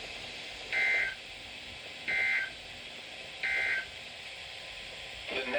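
Emergency Alert System end-of-message code: three short bursts of two-tone digital data chatter (SAME data, the 'NNNN' sequence), about a second and a third apart, over a steady hiss. These bursts mark the end of the alert broadcast.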